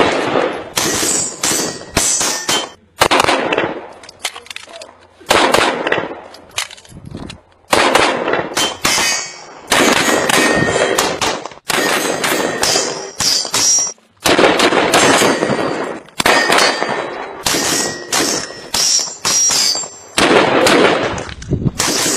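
Gunfire from a short carbine: strings of rapid shots fired in quick groups with brief pauses between, each shot echoing.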